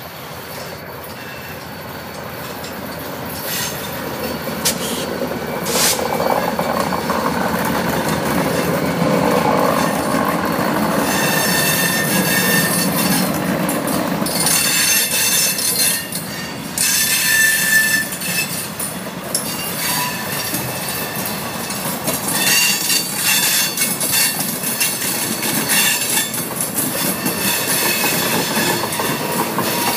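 Grand Elk Railroad diesel freight train passing: its rumble builds over the first several seconds and is deepest through the middle. After that come high wheel squeals that come and go, and repeated clicks of wheels over the rail joints as the cars roll by.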